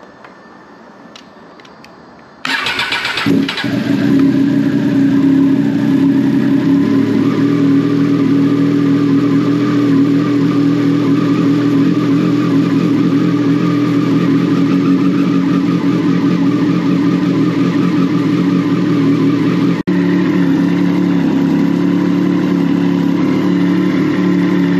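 A 2020 Triumph Daytona 765 Moto2's 765 cc inline three-cylinder engine starts about two and a half seconds in, then idles steadily. This is its first start after a fresh oil and filter change.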